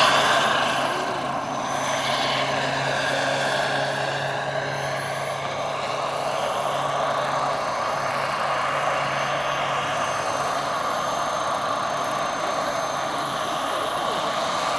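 Turbine and main rotor of a 1:5 scale RC Bell AH-1W Super Cobra, driven by a Jakadofsky PRO X model turbine, in flight: a steady high turbine whine over rotor noise. It fades in the first two seconds as the helicopter flies away, then holds steady in the distance.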